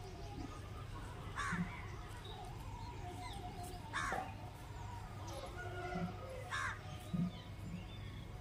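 Crow cawing: three single caws, spaced about two and a half seconds apart, over a low background hum.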